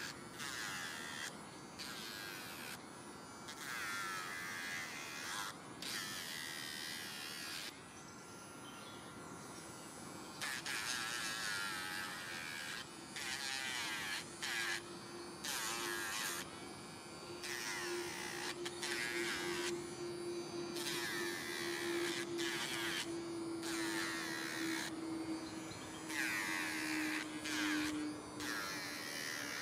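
Electric rotary nail grinder filing a dog's toenails in repeated short passes: a grinding noise of about a second each time it touches the nail, over a steady motor hum that drops slightly in pitch near the end.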